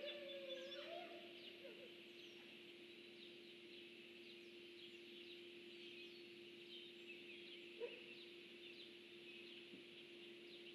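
A wolf's wavering howl, rising and falling in pitch, fading out about two seconds in. After it come faint high chirping over a steady low hum, and one short call near the end.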